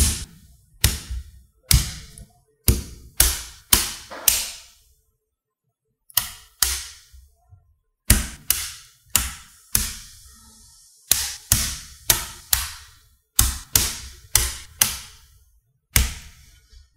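Magnetic metal rods and steel balls snapping together, a series of sharp metallic clacks each with a brief ringing tail, roughly one or two a second, with a pause of about a second and a half a little over a third of the way in.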